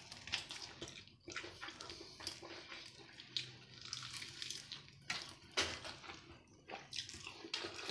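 Irregular crisp crackles and crunches of a fried chicken drumstick's crispy coating being broken open and bitten.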